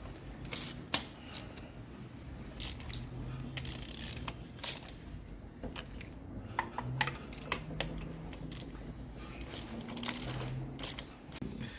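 Scattered light metallic clicks and clinks of hand tools working on spark plugs, irregular and spread through the whole stretch.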